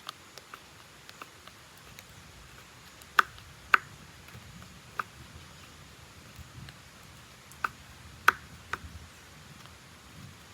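Knife slicing dried Maldive fish thinly on a cutting board: scattered sharp clicks and taps at irregular gaps, about six of them louder than the rest.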